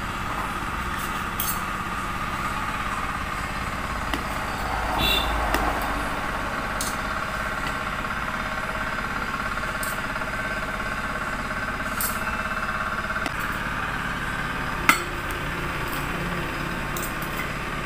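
Kitchen knives clicking now and then against the board and fruit as fruit is cut, one sharper click about fifteen seconds in. Underneath runs a steady machine hum.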